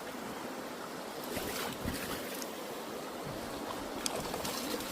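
Creek water rushing steadily, with a few faint brief knocks or splashes.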